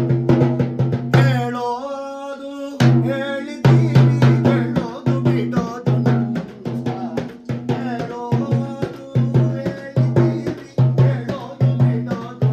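A large handheld frame drum beaten with a stick and the hand in a fast, steady rhythm, each stroke ringing with a deep tone. A man's singing voice comes in over the drumming for a couple of seconds near the start.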